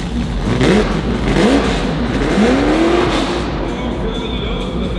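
A performance car's engine revved in three blips over a steady din: two short quick revs, then a longer rev that climbs, holds briefly and drops back.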